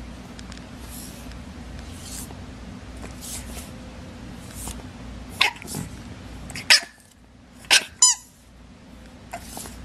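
English bulldog puppies giving a few short, sharp yaps about halfway through; the last one is a yelp that falls in pitch. A steady low hum runs underneath.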